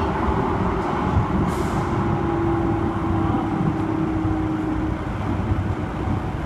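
Light rail train running through a tunnel, heard inside its rear cab: a steady rumble of wheels on rails with a steady hum, and a brief hiss about a second and a half in.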